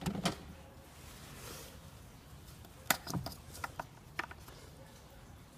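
A few short, light clicks and knocks as the engine's oil filler cap is gripped and twisted off, the sharpest about three seconds in, with smaller ones over the next second.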